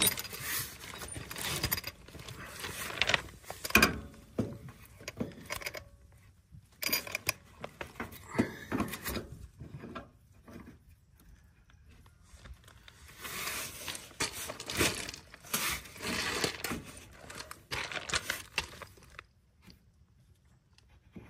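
Handling noise from a MrCool quick-connect line set being lined up with the brass service valve on the outdoor unit: irregular scraping and rustling of the insulated copper line, with small metal knocks. There are quiet pauses between the bursts of handling.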